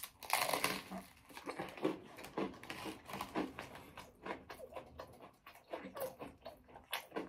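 A person chewing food close to the microphone: a run of irregular soft clicks and smacks, varying in strength, with no pause.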